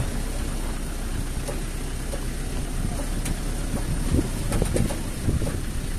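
Wind rumbling and buffeting on a phone microphone, an uneven low rumble that swells and dips.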